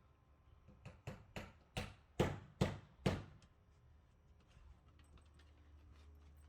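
A quick series of about seven sharp knocks, roughly two or three a second, the last few loudest, each with a short ringing tail; a faint low hum underneath.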